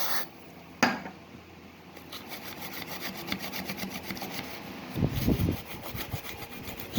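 Toothbrush scrubbing a corroded circuit board in rapid back-and-forth strokes, brushing the corrosion off the board of a car's multimedia control stalk. A click comes about a second in and a dull thump from handling at about five seconds.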